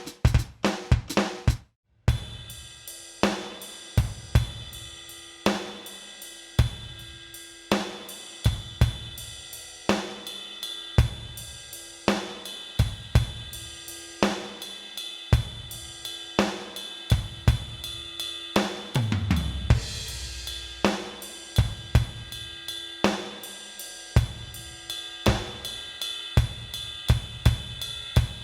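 Drum-kit sounds from a Kurzweil PC4 keyboard workstation played as a beat: kick, snare, hi-hats and cymbals in a steady rhythm. The beat stops briefly near the start, and about two-thirds through a low, falling boom sweeps down under the drums.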